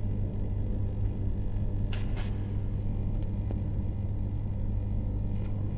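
Steady low hum, with a couple of faint clicks about two seconds in.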